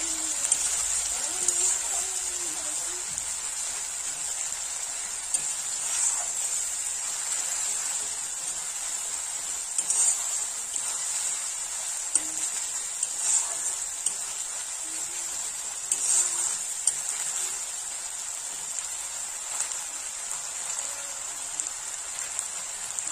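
Onions and spice paste sizzling in hot mustard oil in a wok, a steady hiss, with a metal spatula scraping and tapping against the pan every few seconds as it is stirred.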